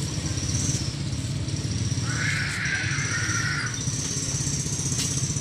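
A small engine running steadily with a low rumble. About two seconds in, a harsh rasping sound lasts about a second and a half.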